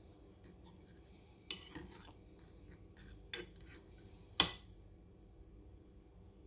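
Metal spoon scraping and clinking against a pot of jam-soaked cookies: a few light scrapes, then one sharp clink about four and a half seconds in.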